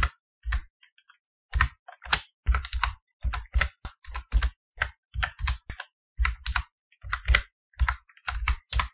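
Typing on a computer keyboard: irregular runs of keystrokes with short pauses between them, with a brief lull about a second in.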